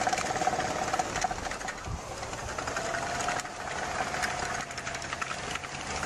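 Tracked snowcat running across snow: a fast, even mechanical clatter over a steady whine that rises slightly about three seconds in.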